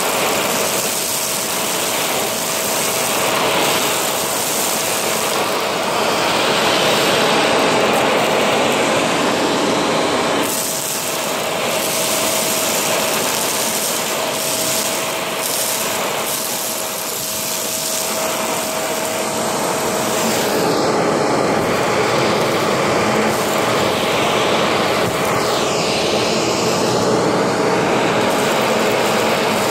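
Shark vacuum cleaner running with its hose nozzle sucking up fine dust and wood shavings from carpet: a steady motor whine over a rushing air noise that rises and falls slightly as the nozzle works the pile.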